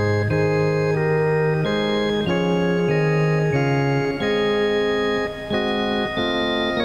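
Organ playing a closing voluntary after the dismissal: sustained chords of steady held notes, changing about every half second.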